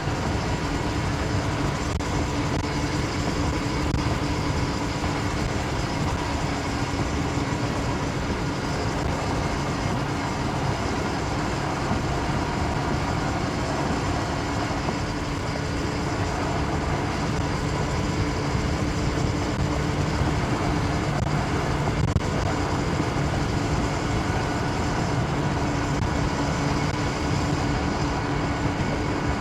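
A steady mechanical running sound, like an engine or machine holding an even speed, with a constant hum and no change in pitch.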